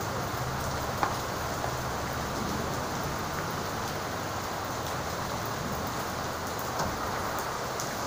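Steady rain falling on wet pavement, with a single sharp tap about a second in.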